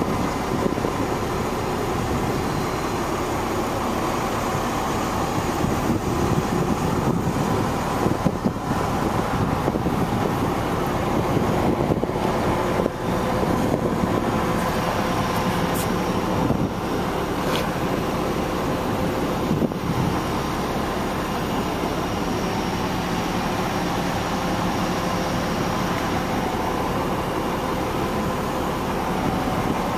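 Truck engine on a digger derrick running steadily at idle, with a few light clicks and knocks in the middle.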